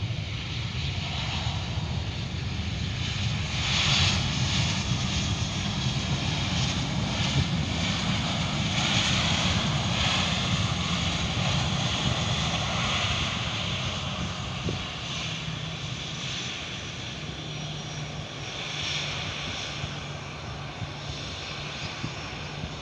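Jet engines of an AirAsia airliner landing and rolling out along the runway, heard across the airfield as a steady roar. The roar swells a few seconds in and eases off in the last third.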